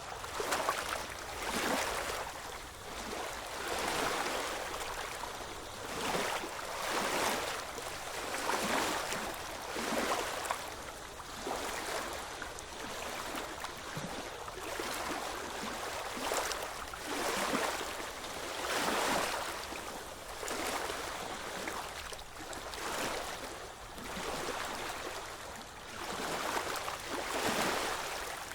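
Small ocean waves washing in and out at the shore, the surf rising and falling in quick, regular swells about every two seconds.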